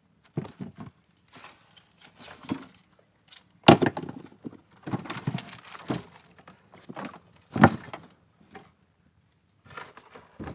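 Knocks and thumps against a small boat as a freshly caught fish is handled and flaps in the hull. There are two loud thumps about four seconds apart, with smaller knocks between them.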